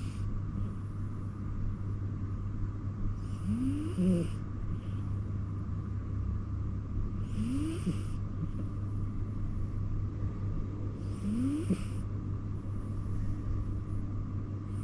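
Domestic cat snoring in its sleep: three snores about four seconds apart, each rising in pitch as it goes, over a steady low hum.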